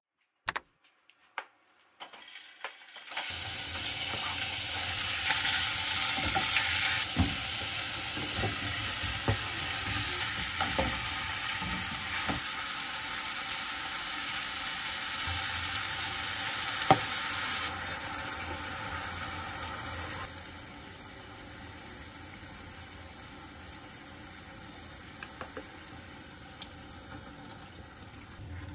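Chunks of meat and vegetable frying in a pot, a steady sizzle that starts about three seconds in, with a few sharp taps of a utensil against the pot. About two-thirds of the way through the sizzle drops to a lower, quieter hiss.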